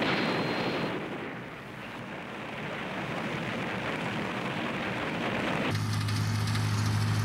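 A dense, crackling rush of noise from burning buildings. About three-quarters of the way through it cuts abruptly to a military jeep's engine running with a steady low hum.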